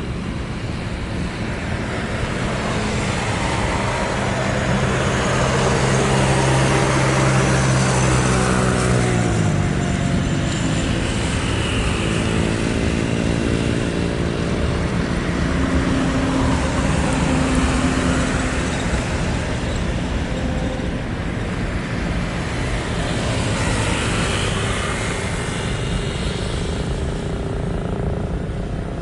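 Aircraft on takeoff at full power: a loud engine drone made of several steady low tones, which all drop in pitch about nine seconds in as the aircraft passes, over a rushing engine roar that swells again near the end.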